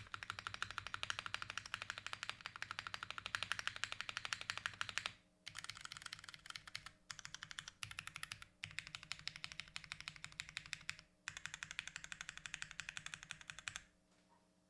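Fast typing on a top-mounted 60% HHKB-layout mechanical keyboard with lubed Cherry MX vintage Brown tactile switches, a carbon fibre plate and GMK keycaps. The keystrokes come in long rapid runs broken by several brief pauses, and stop about a second before the end.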